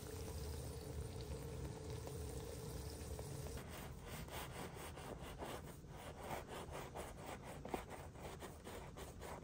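Burger patties sizzling on a hot griddle, then, about three and a half seconds in, a large knife sawing through a crusty bread roll on a wooden board in quick back-and-forth strokes, about four a second.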